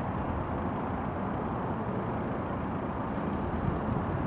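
Steady low rumble of outdoor traffic ambience across a car park, with no single distinct event standing out.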